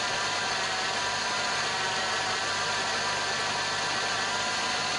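Peugeot 406 petrol engine idling, a steady running noise with faint steady tones from the accessory belt drive. The noise comes from a bad pulley bearing on the air-conditioning compressor, not from the alternator.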